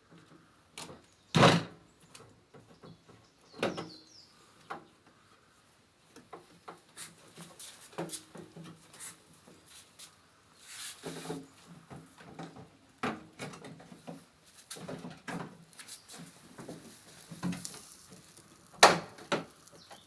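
Irregular knocks, clicks and rubbing from hard objects being handled, with two louder knocks, one near the start and one near the end.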